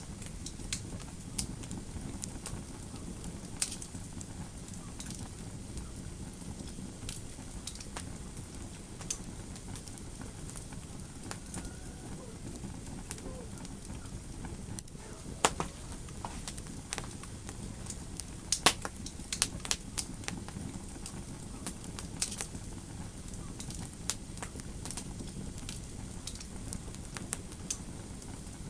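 Fire crackling in a fireplace: a steady low rumble of burning with irregular sharp pops throughout, and a few louder pops a little past halfway.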